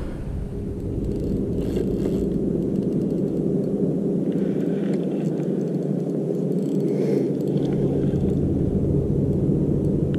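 A small motor running with a steady low hum. A few faint scrapes come over it.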